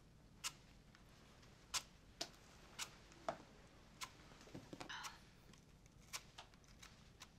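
Faint, crisp clicks, about ten scattered irregularly, with a short rasp about five seconds in, from a small knife cutting into a firm apple.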